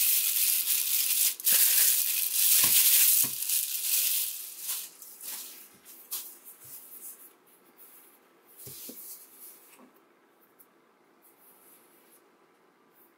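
Thin clear plastic bag crinkling loudly as it is pulled off a plastic essential oil diffuser. It dies away after about four seconds into scattered crinkles and a few soft knocks as the bare diffuser is handled, and it is near quiet for the last few seconds.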